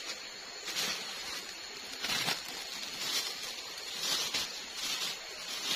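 Footsteps crunching on dry leaf litter, about one a second, over a steady high insect whine.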